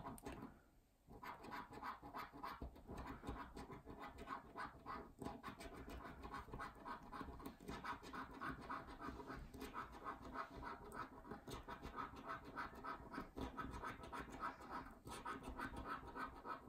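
A coin scratching the scratch-off coating from a scratchcard in quick, rapid strokes, with a short break about a second in and another near the end.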